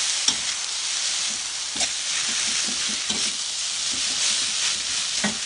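Vegetable fern (pak kood) sizzling in hot oil in a wok while being stir-fried with a metal spatula: a steady sizzle with a few sharp clinks of the spatula against the wok, the first just after the start, one about two seconds in and one near the end.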